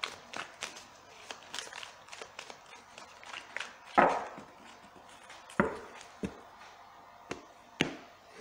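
A deck of cards shuffled by hand, a run of quick light clicks, then the deck knocked sharply on the table to square it about halfway through. A few more single taps follow as cards are set down on the cloth-covered table.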